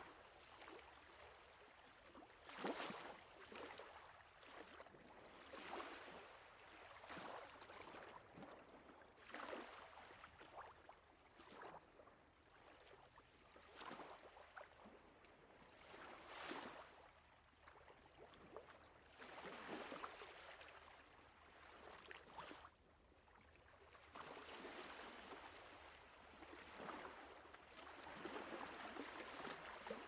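Faint moving water: gentle splashing and lapping that swells and falls irregularly every second or two.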